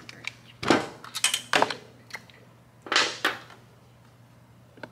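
A few short metallic clinks and clatters, loose bolts and tools knocking against metal as the cam support plate is worked free, with a quiet stretch after about three and a half seconds.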